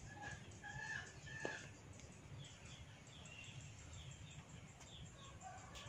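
Background chickens clucking in a few short notes, then small birds chirping in short rising notes, over a low steady rumble. One sharp click comes about a second and a half in.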